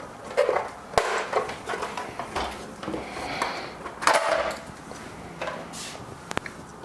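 Conical burr coffee grinder's case being taken off and handled: irregular clicks, knocks and short scrapes of plastic parts, with sharper knocks about a second in, near the middle and near the end.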